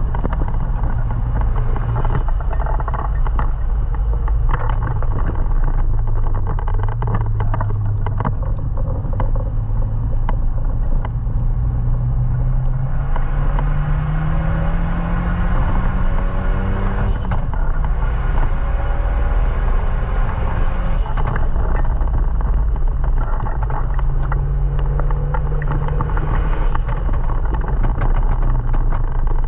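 Renault Mégane Sport 225's turbocharged four-cylinder engine running under way. Its pitch climbs slowly through the middle, drops at about seventeen seconds in, then runs on. A loud hiss joins from about thirteen to twenty-one seconds in.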